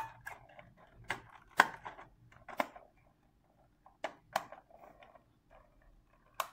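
Sharp plastic clicks and snaps from the doors, tailgate and bonnet of a Bruder toy Jeep Wrangler being pushed shut by hand. There are about seven separate clicks a second or so apart, with faint handling rustle between them.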